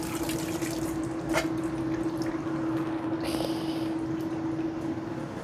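Tap water running as hands are washed under it, with a brief splash about three seconds in. A steady hum runs under the water.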